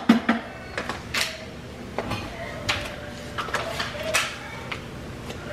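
Kitchen handling noises: about six brief rustles and soft knocks, spread roughly a second apart, as a stick of butter is unwrapped and put into a slow cooker lined with a plastic liner.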